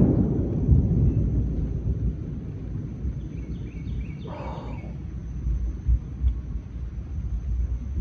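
Thunder rumbling low and fading after a close lightning strike, loudest at the start and trailing off into a continuing low rumble. A few faint, short high chirps come about halfway through.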